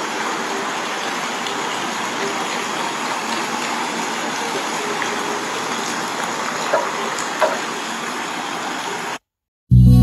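Steady rushing of water from a fountain or water feature, with a couple of small clicks; it cuts off abruptly near the end and music starts.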